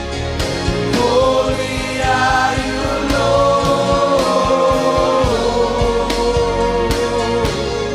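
Gospel worship music: voices holding long sung notes over a steady drum beat.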